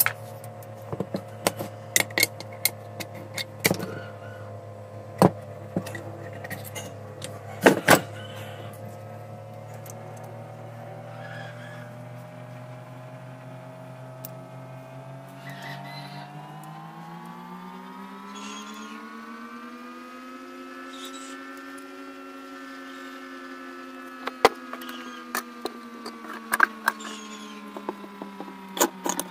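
Metal engine parts clicking and knocking against each other as the crankcase and parts of a small four-stroke grass-trimmer engine are handled, loudest twice about eight seconds in and in a cluster near the end. Under it runs a steady droning hum that slowly rises in pitch about halfway through, then eases back down.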